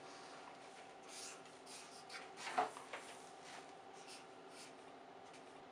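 Pen and paper scratching and rubbing on a desk: a series of short, soft strokes, the loudest about two and a half seconds in, over a faint steady hum.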